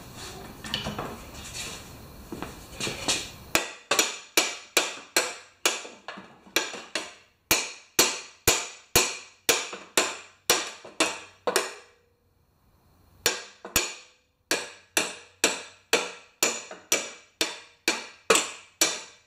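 Hammer blows on a lawn mower's steel blade, trying to knock loose a locked-up engine that is thought to be seizing. The blows start a few seconds in, come steadily at about two a second, pause for about a second partway through, then resume.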